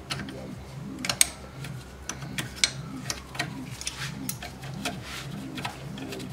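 Sharp metal clicks and clinks of a combination wrench against bolts and brackets, at irregular intervals and loudest about a second in and again near the middle, over background music with a steady beat.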